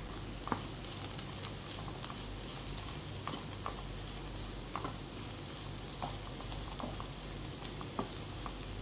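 Dark-roasted beef pieces sizzling in a non-stick frying pan while a wooden spatula stirs them, with short scrapes and taps of the spatula scattered through the steady hiss.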